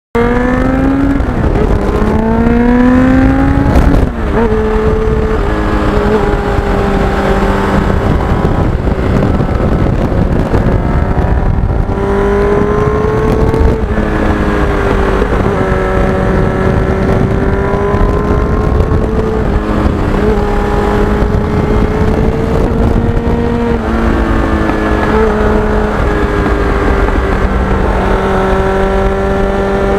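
Kawasaki GPX750R Ninja's inline-four engine under way: it revs up and shifts up twice in the first four seconds, the pitch dropping at each shift, then holds a fairly steady cruising pitch with small rises and falls.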